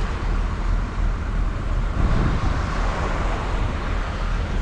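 Steady wind buffeting the microphone, with heavy surf breaking on the beach.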